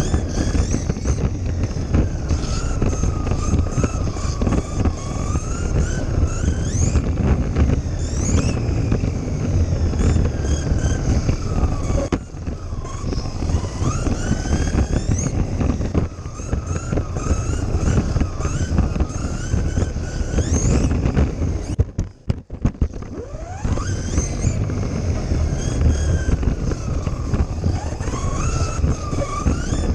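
Kyosho Mini-Z RC car's small electric motor and drivetrain whining, rising and falling in pitch with the throttle, heard from a camera riding on the car over a steady low rumble of wheels and wind. About 22 seconds in the whine stops and the sound drops out briefly. Then it rises again as the car speeds off.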